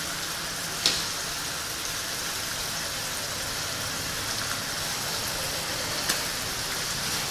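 Freshwater mussels sizzling in a wok over a gas flame, a steady hiss, with a light click about a second in and another near the end.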